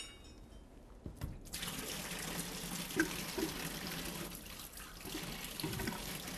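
Engine coolant pouring in a steady stream out of the loosened lower hose flange at the water pump and splashing into a drain pan. The flow starts about a second and a half in, with a light clink about three seconds in.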